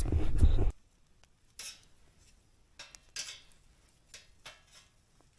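A loud, low rumble of microphone handling noise for about the first half second. Then a few short, scattered scrapes and clicks of metal tongs against a wire grill grate as bratwursts are turned.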